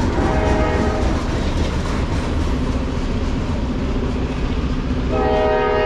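Freight cars of a Norfolk Southern local, covered hoppers, rolling past on jointed track and receding, with a steady low rumble. About five seconds in, a train horn starts sounding a sustained chord.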